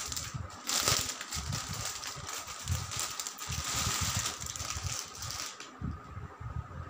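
Clear plastic packaging bag crinkling and rustling as it is handled and opened to take out folded cotton clothing, with handling bumps; the crinkling stops about five and a half seconds in.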